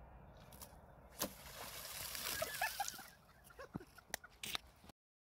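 A golf club strikes into shallow ditch water with a sharp hit about a second in, followed by splashing as a person stumbles forward into the water, with faint voices. The sound cuts off suddenly near the end.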